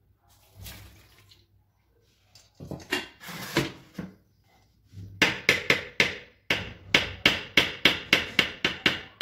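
A spoon tapped again and again against the rim of a blender jar to knock peanut butter off into the shake. The sharp taps start about five seconds in and come about three a second.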